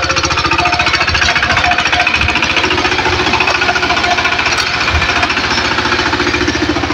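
VST Shakti power tiller's single-cylinder diesel engine running steadily under load, with a rapid, even knocking, as its rotary tines puddle a flooded paddy field for rice transplanting.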